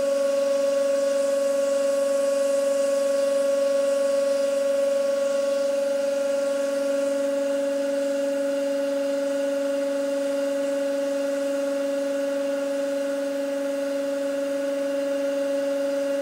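Hydraulic press running under load as its ram bears down on a bicycle crank's pedal, a steady pitched hum that does not change.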